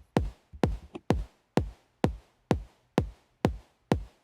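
Electronic drum-machine beat: a single deep drum hit repeating evenly about twice a second, each hit a sharp attack with a low tone that drops in pitch, playing through a compressor plugin set to a high ratio.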